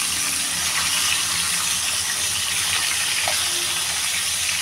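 Chicken pieces sizzling steadily as they shallow-fry in hot oil in a pan.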